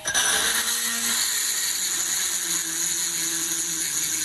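Small 72 W geared micro electric drill running under load as a 3/16-inch twist bit cuts into hard steel plate: a steady, high whine from the motor and reduction gearbox. It starts abruptly and holds at one level.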